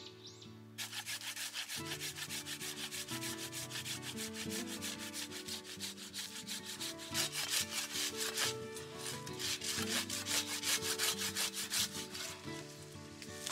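A coarse-toothed hand saw cuts through a thin tree trunk in quick, steady back-and-forth strokes, starting about a second in.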